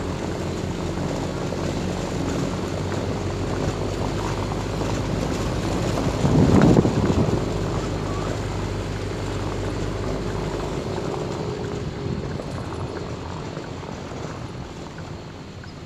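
Motorcycle engine running steadily while riding, with wind noise over the microphone. A brief louder rumble comes about six and a half seconds in, and the engine note dies away over the last few seconds.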